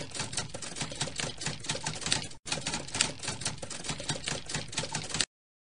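Typing sound effect: rapid, dense typewriter-style key clicks with a brief break about two and a half seconds in. It cuts off suddenly near the end.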